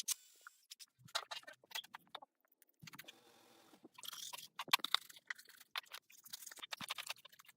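Irregular gritty scrapes and small metal clicks of hand work on a cast-iron diesel cylinder head, growing busier about halfway through, in keeping with the valves being lapped into their seats.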